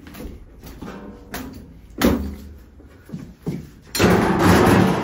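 Steel pry bar forcing the drawer of a metal filing cabinet: sharp metal clanks and knocks, the sharpest about two seconds in, then about a second of loud grinding, scraping metal near the end.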